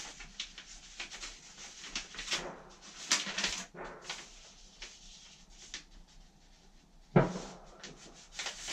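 A sheet of paper being folded and creased by hand: a run of short rustles and crinkles, with one louder thump about seven seconds in.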